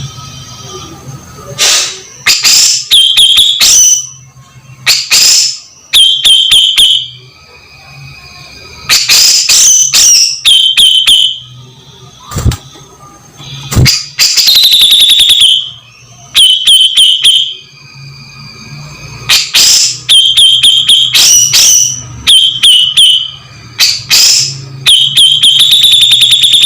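Grey-cheeked bulbul (cucak jenggot) calling loudly in harsh, rasping chattering bursts, each a second or so long, repeated about every two seconds.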